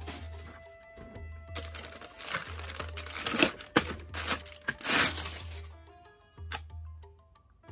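Plastic packaging bags crinkling and rustling in repeated bursts as wrapped plastic fan blades are handled and pulled from a cardboard box, over background music with a steady low beat. The crinkling stops about two thirds of the way in, leaving the music and a single sharp click.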